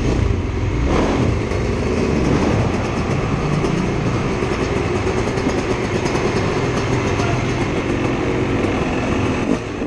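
Dirt bike engine running as the motocross bike is ridden slowly through a concrete tunnel and underground hall, with a brief dip in level near the end.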